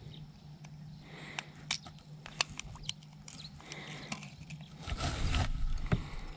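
Small splashes and drips of river water as a flathead catfish is held by hand at the surface to recover before release, with a louder splash about five seconds in. A steady low hum runs underneath.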